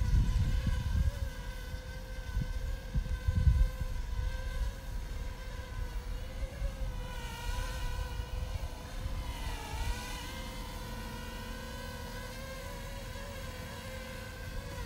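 JME quadcopter drone's propellers buzzing with a steady multi-tone hum, the pitch dipping briefly and recovering about ten seconds in. Low gusty rumbles on the microphone in the first few seconds.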